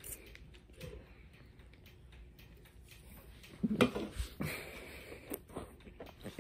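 A person chewing a mouthful of soft white bread with the mouth closed: small wet clicks and smacks, with a brief louder sound a little under four seconds in.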